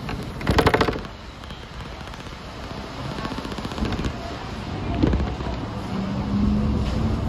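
Hong Kong double-decker tram running, with a loud, very fast clatter lasting about half a second just after the start, then steady running noise that slowly grows louder.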